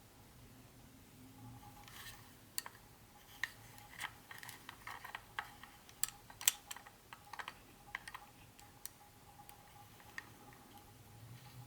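Light handling sounds of an unboxing: a scattered run of short clicks and taps, as from small plastic parts and packaging, thickest in the middle.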